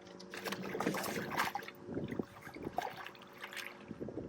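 Water splashing and sloshing in uneven splashes beside a small boat as a hooked redfish is fought at the surface.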